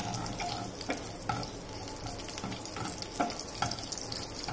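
Mustard, sesame and cumin seeds crackling and sizzling in hot oil in a wok (kadhai) while a spatula stirs and scrapes the pan. Scattered sharp pops sound over a steady sizzle: the seeds are spluttering, the sign that the tempering oil is hot enough.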